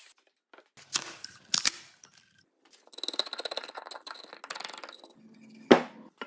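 Sharp wooden knocks, then a dense crackling rattle of splintering wood as the thin kerf-cut slices of waste are broken off a timber tenon cheek. A single heavy wooden thump comes near the end.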